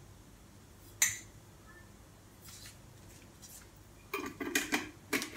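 Glass storage jar clinking and knocking as it is handled while being filled with dry ingredients: one sharp clink about a second in, then a quick run of clinks and knocks about four seconds in.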